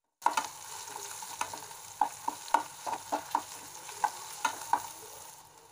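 Chopped banana flower and onions sizzling in oil in a metal pan while a metal spoon stirs them, knocking and scraping against the pan about a dozen times with a ringing clink. The sizzle cuts in suddenly and drops away shortly before the end.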